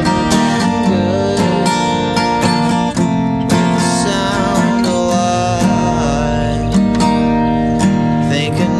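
Acoustic guitar strummed in a steady rhythm, playing a folk/country song.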